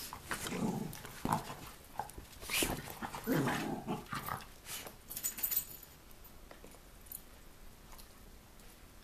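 Rat terriers growling and scuffling in rough play, loudest around the first second and again about three to four seconds in, then quieter from about six seconds.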